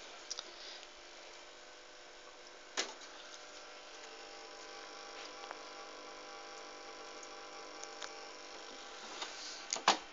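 Steady electrical hum, with a few sharp clicks: a couple near the start, one about three seconds in and one near the end.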